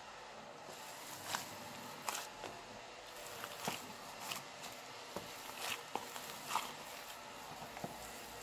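Hands in disposable gloves kneading a minced chicken and breadcrumb köfte mixture in a bowl: irregular soft squelches and sharp little clicks, about a dozen, over a faint hiss.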